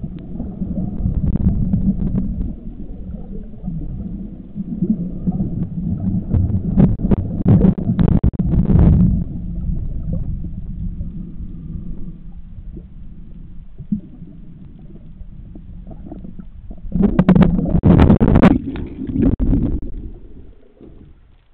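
Underwater sound picked up by the camera: a steady low rumble of water moving around it. Over it come two longer spells of bubbling and gurgling, one a little before the middle and one near the end, typical of a diver's exhaled bubbles.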